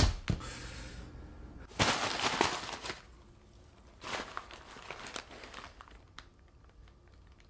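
Handling noises: a thump at the start, then two stretches of rustling and crinkling, and a few light clicks near the end.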